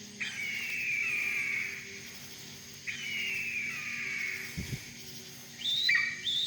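An unidentified large bird calling loudly from the trees: two long screams, each falling slowly in pitch, then near the end a quick run of short, downward-sweeping calls about two a second.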